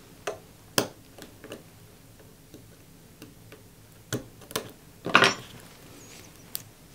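Small sharp metal clicks and taps as a spring bar and a stainless Jubilee bracelet end link are worked into a watch case's lugs, a handful of separate clicks with a quick cluster of clicks, the loudest, about five seconds in.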